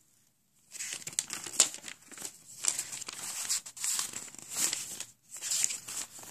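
Paper pages being handled and turned, rustling and crinkling in a run of irregular swishes that start about half a second in.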